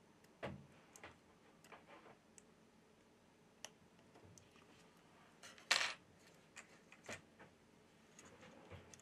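Faint, scattered clicks and taps of a plastic spudger and fingertips working on an opened smartphone's board and frame, with one louder short scrape a little under six seconds in.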